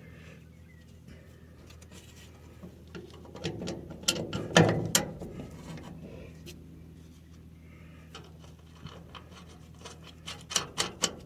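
Metal parts clicking and clinking as a bearing and its bolts are handled and fitted by hand, with one louder clunk about four and a half seconds in and a run of quick clicks near the end, over a steady low hum.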